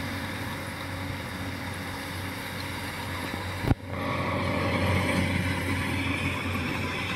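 Rice combine harvester running steadily as it cuts through standing rice, a steady engine hum with the rush of the threshing machinery. A sharp click comes a little past halfway, after which the running is somewhat louder.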